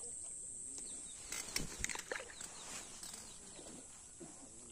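Close handling noise: a short cluster of rustles and clicks about a second and a half in, as hands work bait onto a hook and move through waterside weeds, over a steady high thin whine and faint distant outdoor sounds.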